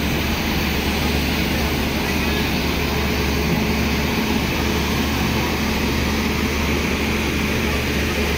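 Locomotive standing with its machinery running: a steady, loud drone with a low hum and a steady mid-pitched tone.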